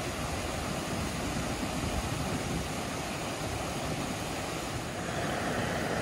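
Steady rush of a mountain stream pouring over bedrock below a waterfall.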